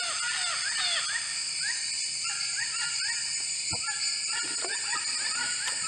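Rainforest birds calling in a quick series of short, hooked whistling chirps, over a steady high-pitched insect chorus. A couple of faint knocks come in between.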